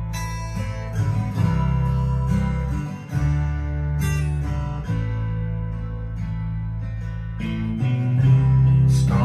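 A song with guitar and a heavy bass line, played back through a pair of vintage floor-standing loudspeakers in a room.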